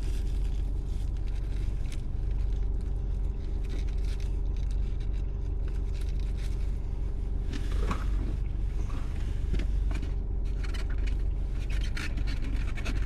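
Steady low hum of a running car heard from inside the cabin, with light rustling and small clicks over it.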